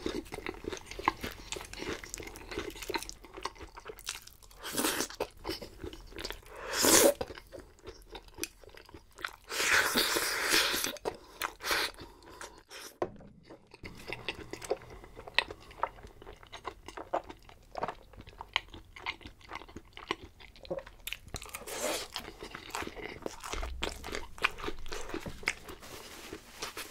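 Close-miked eating: crisp bites and crunching through food with steady chewing and mouth sounds, and a louder, longer crunch about ten seconds in.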